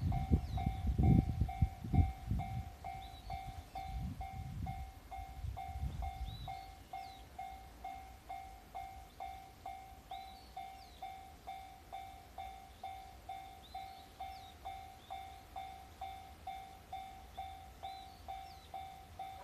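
Japanese level-crossing electronic warning bell ringing steadily at about two dings a second. Over the first six seconds the low rumble and wheel thumps of a passing JR 313 series electric train fade out under it.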